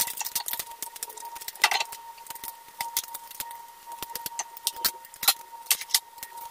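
Fish frying in oil in a nonstick pan: irregular sizzling with popping crackles of spitting oil. A spatula moves the fish in the pan a few seconds in.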